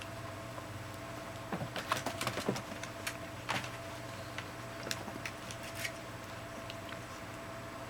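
Scattered light clicks and taps, a cluster of them about two seconds in and a few more later, over a steady low electrical hum.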